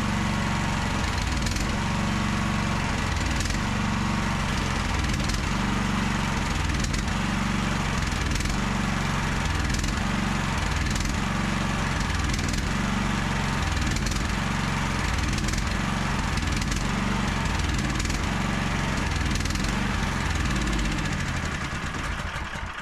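Mini excavator's small gasoline engine running steadily, then faltering and dying about 22 seconds in as it runs out of fuel, emptying the carburetor bowl for winter storage.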